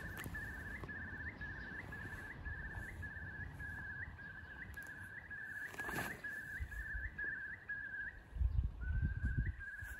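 A bird calling over and over, a short note about twice a second, each ending in a quick upward flick. A single sharp click comes about six seconds in, and there is low rumbling near the end.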